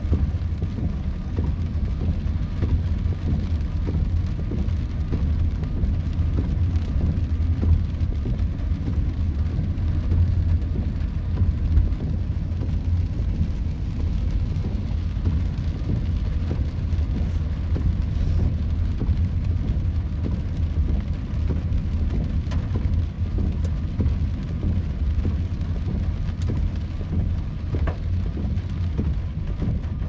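Rain and road noise heard from inside a moving car: a steady low rumble of tyres and engine under a fainter hiss of rain on the roof and windscreen.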